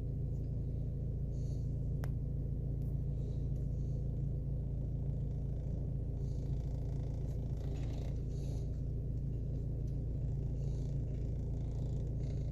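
Car engine idling, a steady low hum, with a small click about two seconds in.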